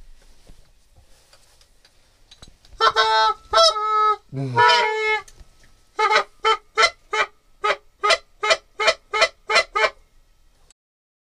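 Canada goose call blown by hand: a few drawn-out honks that break in pitch, one dropping to a low moan, then a steady run of short clucks, about three or four a second, that stops about ten seconds in.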